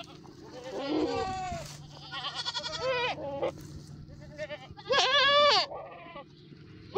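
Several goats bleating one after another, calls with a wavering pitch, the loudest a long bleat about five seconds in.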